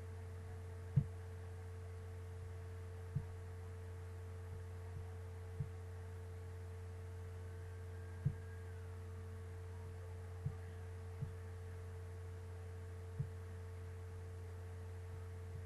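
A steady low hum with a steady tone above it, broken by about seven soft, low knocks at irregular intervals.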